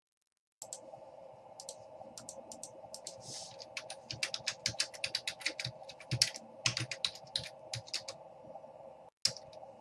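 Typing on a computer keyboard: a run of quick key clicks, thickest from about four seconds in, over a faint steady hum.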